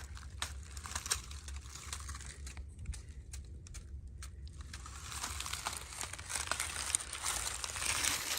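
Crinkling rustle and scattered clicks from walking and handling a handheld camera on a trail, over a steady low rumble on the microphone. The rustle grows denser and louder from about halfway through.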